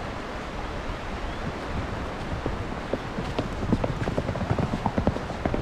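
A steady rushing noise, with a fast, irregular run of short knocks and clatter from about halfway through.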